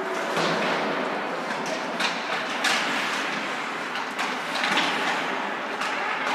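Ice hockey play on a rink: a continuous hiss of skate blades scraping the ice, with occasional sharp clacks of sticks and puck.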